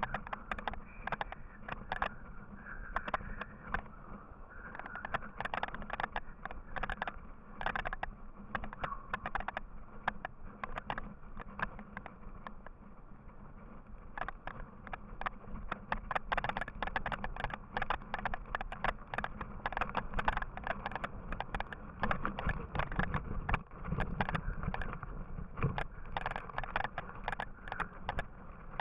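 A yooner's ski sliding and scraping over packed snow during a descent, with frequent irregular knocks and rattles as it runs over bumps.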